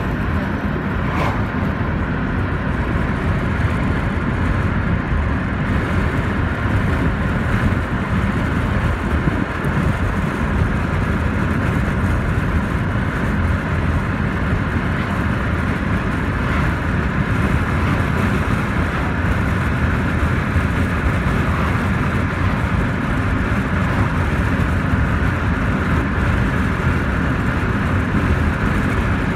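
Steady road noise of a car driving along at speed: an even, low tyre and engine rumble.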